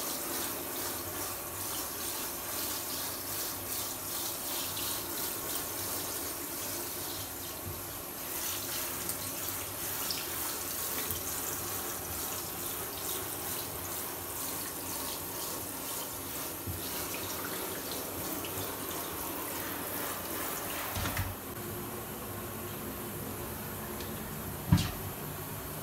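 Water spraying from a handheld shower head onto a wet cat's fur and the bathtub floor, a steady hiss that shuts off near the end. A single short knock follows a few seconds later.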